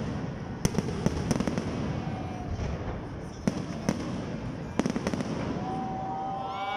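Fireworks display: irregular sharp bangs of shells bursting, some in quick clusters, over the steady noise of a large crowd.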